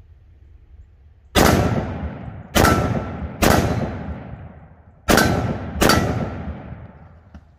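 Five unevenly spaced shots from a Ruger SFAR .308 semi-automatic rifle with a muzzle brake, firing 7.62 NATO M80 ball. Each report trails off in a long echo, and after several hits a faint ring comes from the steel target plates.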